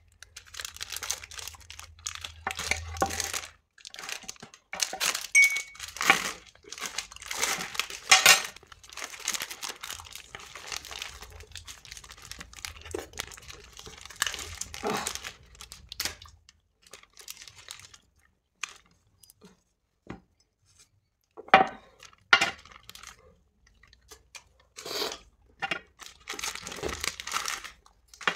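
Plastic ice-cream wrappers crinkling and tearing as they are ripped open and handled, in short irregular rustles, with a near-silent lull a little past the middle.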